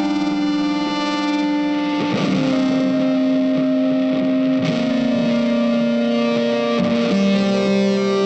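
Background music without singing: a guitar through effects holding long notes, moving to a new note about every two and a half seconds.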